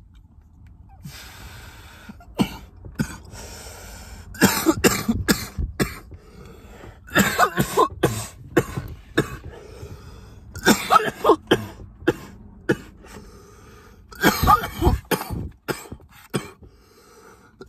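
A young man coughing hard in four fits about three seconds apart, starting about four seconds in, after inhaling from a Delta-8 disposable vape.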